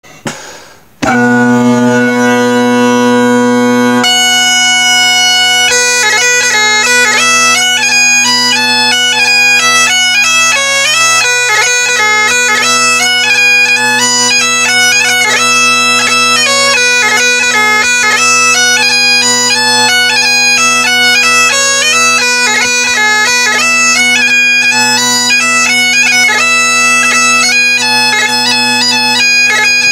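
Great Highland bagpipe striking up. A brief rising squawk comes as the pipes come in, then the steady drones sound with one held chanter note. About four seconds in, the chanter starts a quick, ornamented march tune over the drones.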